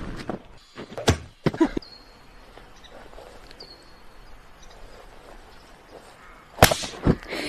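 Thuds of a person and padded foam pillars hitting a crash mat: two about a second in, then a lull with faint outdoor noise, then a sharper, louder pair of thuds near the end.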